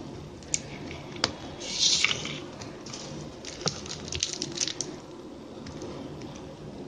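Plastic basket-weaving wire rubbing and clicking as strands are pulled through and around a tape-wrapped handle. A crinkly rustle comes about two seconds in, with a few sharp clicks before it and a run of small clicks between about three and a half and five seconds.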